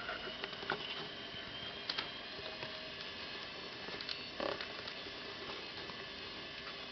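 Two kittens play-fighting: soft scuffling and scratching of paws and claws on a blanket, with a few faint taps and clicks over a steady hiss.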